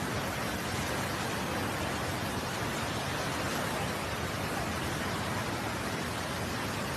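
Steady, unbroken rushing of water, an even hiss with no distinct events.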